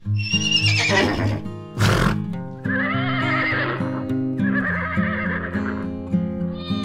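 Horse whinnying: a falling whinny, a short noisy burst about two seconds in, then two quavering whinnies, over background music.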